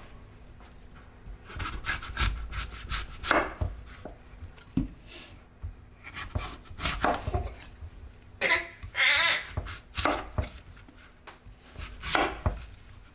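Kitchen food-preparation sounds: irregular knocks and scraping of utensils on food, with a longer scrape about nine seconds in.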